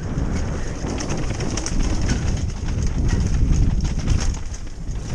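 Helmet-camera sound of a Giant Glory downhill mountain bike descending a dirt trail: wind buffeting the microphone, tyres on dirt, and the bike rattling with frequent clicks and knocks over the bumps.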